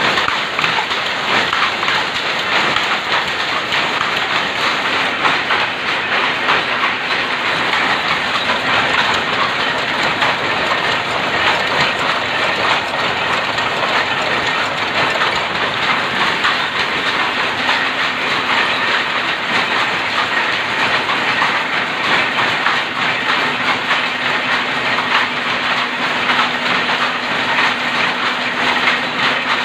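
Rapier looms, converted from shuttle looms and weaving plain cloth, running together in a dense, steady, rapid mechanical clatter, with a low steady hum beneath.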